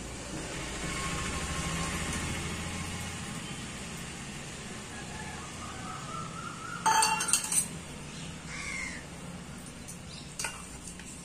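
Stainless steel bowls, a plate and a spoon clinking and scraping while being handled at a cooking pot, with a quick cluster of clinks about seven seconds in and a single clink near the end.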